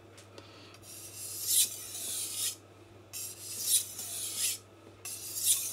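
Steel knife blade drawn across a water-soaked King Deluxe 1000-grit whetstone in three long, full-length sharpening passes, each a scrape of about a second and a half with short pauses between.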